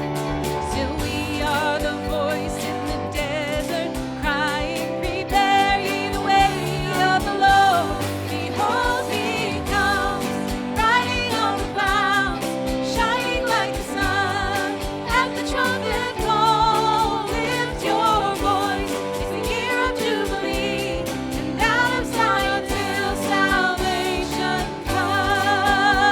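Worship song: a singer holding notes with vibrato over instrumental accompaniment with a steady beat.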